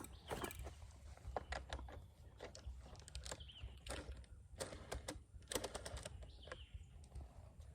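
Faint, irregular clicks and taps of a 10 mm wrench working on the motorcycle's bolts and parts being handled.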